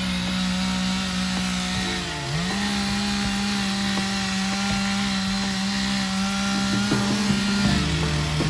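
Chainsaw running at high speed while cutting into a tree. Its pitch sags briefly about two seconds in, then recovers, and drops again near the end.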